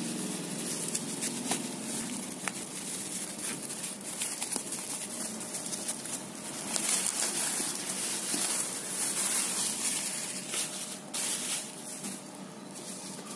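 Thin plastic courier bag and bubble wrap rustling and crinkling irregularly as hands pull a parcel out of the bag.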